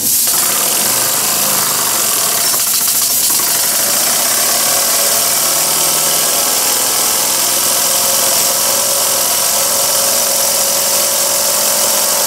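Small vertical double-acting model steam engine starting abruptly and running steadily at speed with a constant hiss, driving a homemade model dynamo by a coiled-spring belt.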